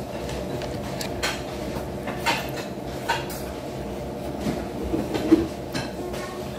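Chopsticks clicking and tapping against a bowl while noodles are picked up and eaten: a handful of scattered sharp clicks over a steady low hum.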